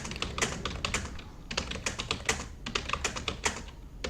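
Computer keyboard keys being typed quickly in a touch-typing drill, a rapid run of key clicks with a brief pause a little past halfway.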